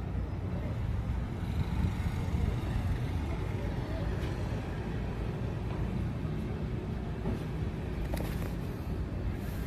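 Outdoor harbourside ambience: a steady low rumble, with faint voices in the background.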